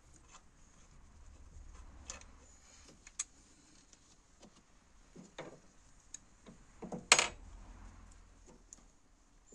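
Scattered light metal clicks, clinks and rustles as a VW T4 1.9 TD's EGR valve is worked free with an Allen key and lifted out by gloved hands, with one sharper clack about seven seconds in.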